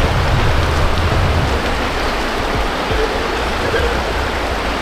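River water rushing steadily over rocks, an even, loud noise of flowing water.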